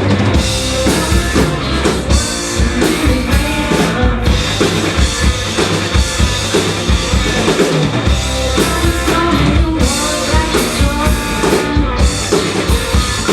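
A rock band playing live, with a drum kit driving a steady beat under guitar.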